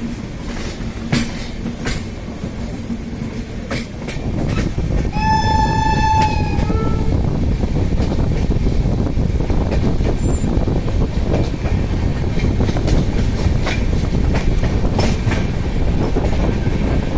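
Express train running at speed, heard from on board: a steady rumble with clacks from the wheels over rail joints, growing louder about four seconds in. About five seconds in, the locomotive's horn gives one shrill blast of about a second, followed by a brief, shorter second note.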